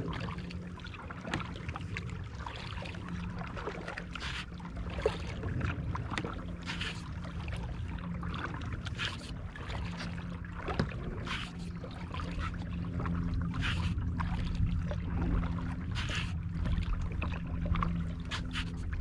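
Kayak paddle blades dipping and splashing in the water with each stroke, roughly once a second, over a steady low hum and rumble.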